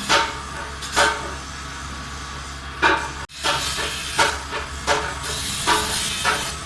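Sharp knocks, about seven at uneven intervals of roughly a second, each with a short ringing, over a steady low hum. The sound breaks off briefly about three seconds in.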